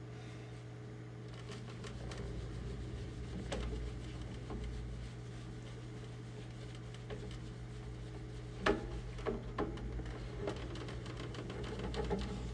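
A plastic costume armor piece being handled and rubbed with a paper towel: rustling and scrubbing with several sharp clicks and knocks a little after the middle. A steady low hum runs underneath.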